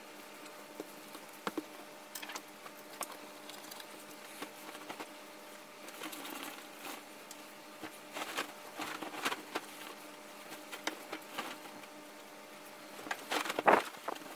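Cotton bedding being handled: a duvet and its cover rustling and flapping in short irregular bursts, busiest in the second half and loudest near the end as the cover is shaken out.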